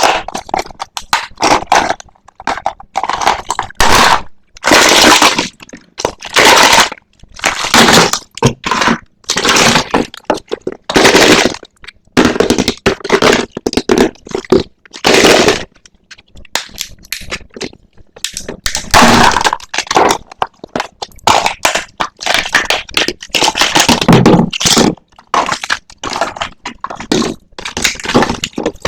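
Toy packaging being opened by hand: repeated crinkling, crackling and tearing in irregular bursts of up to about a second, with sharp clicks and short pauses between them.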